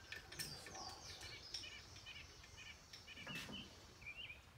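Faint small-bird chirping, a steady run of short repeated chirps, with a few light knocks and clicks, one a little louder about three and a half seconds in.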